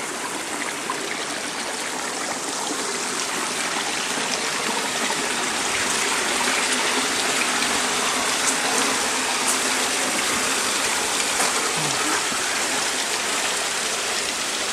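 Small waterfall spilling through a gap in a stone wall into a rocky brook: a steady rush of running water that grows louder over the first several seconds, then holds.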